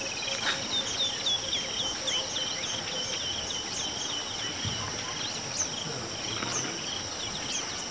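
A steady high-pitched insect drone from the bush, with a fast run of short falling bird chirps over the first few seconds and scattered higher chirps after.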